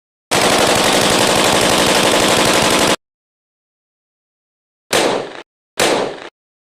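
AK-47 firing on full auto in one sustained burst of about two and a half seconds, cutting off sharply, followed by two short bursts about a second apart, each trailing off.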